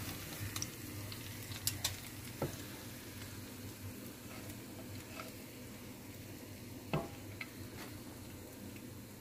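Hot oil sizzling steadily in a frying pan where steak has just been pan-fried, with a few sharp clicks, the loudest about seven seconds in.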